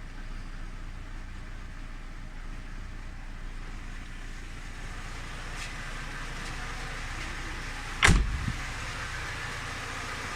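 Warm car engine idling steadily with small knocks still faintly audible, which the owner suspects is piston slap. About 8 seconds in, a single loud thump.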